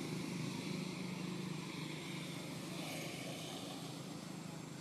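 Steady low motor hum, like a running engine, over a faint even hiss.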